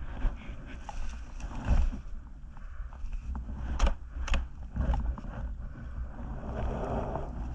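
A fallen dirt bike being heaved upright out of snowy brush: rustling and scraping of twigs and snow, with two sharp clicks about four seconds in, over a steady low rumble.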